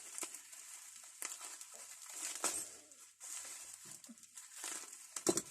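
Old hand tools being handled on a bench: a few light knocks and clinks with rustling of parcel packaging in between.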